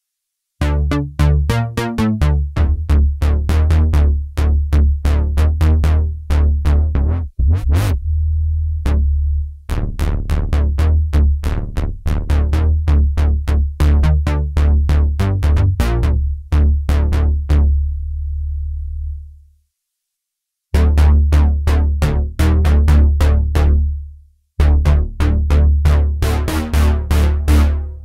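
Roland JUPITER-4 software synthesizer playing a bass preset: a fast run of short repeated bass notes with a heavy low end, breaking off for a moment a few times.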